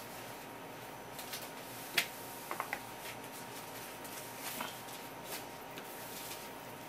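Faint rubbing, small clicks and short squeaks of a terry towel gripping and pulling over a spear squid's slippery body on a wooden cutting board as the skin is stripped off. A sharp click comes about two seconds in, followed by a few quick squeaks.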